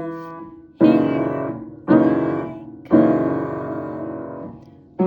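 Piano playing three chords of a beginner's blues-scale piece, struck about a second apart, each left to ring and fade, the last held longest.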